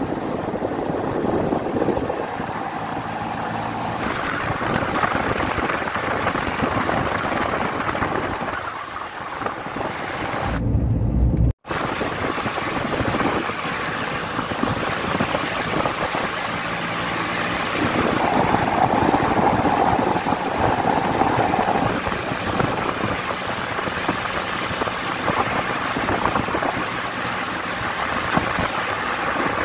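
Car rolling along an asphalt road: steady engine and tyre noise. The sound cuts out briefly about eleven and a half seconds in, then carries on.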